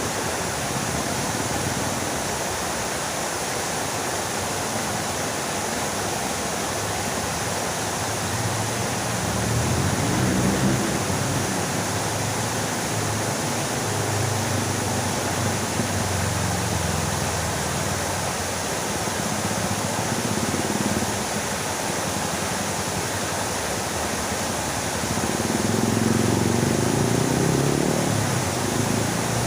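Fountain water splashing, a steady hiss of falling water. A lower murmur swells in around ten seconds in and again near the end.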